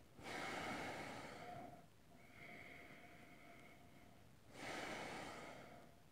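A man sniffing whisky from a glass held at his nose: two long breaths in through the nose, each about a second and a half, about four seconds apart.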